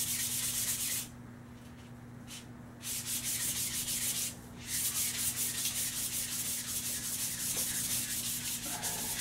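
Fine-grit (400 to 600) sandpaper rubbed by hand along a Crosman 760 air rifle's metal barrel in fast back-and-forth strokes, smoothing and polishing out the ridges left by the factory machining. The strokes stop for nearly two seconds about a second in and briefly again after about four seconds, over a steady low hum.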